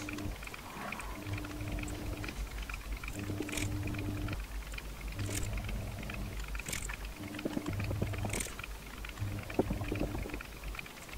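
Soldering iron reflowing joints on a circuit board with fresh solder: a few short hisses of flux as joints melt, small handling clicks, and a low electrical hum that cuts in and out about once a second.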